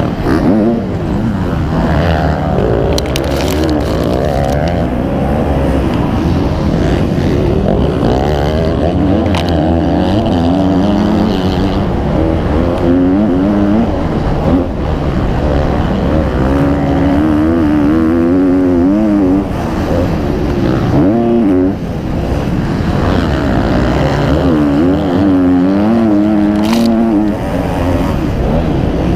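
MX2-class motocross bikes racing, their engine notes rising and falling over and over as they rev.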